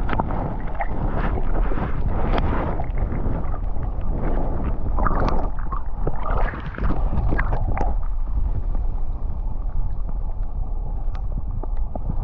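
Muffled underwater noise from an action camera held submerged in shallow water: a heavy low rumble with gurgling and irregular knocks and sloshes of water against the camera.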